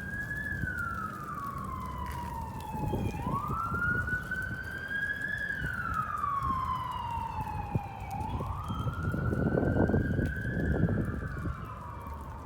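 Emergency vehicle siren on a slow wail, rising over about two seconds and falling over about two and a half, repeating about three times. Underneath is a low rumble that swells about ten seconds in.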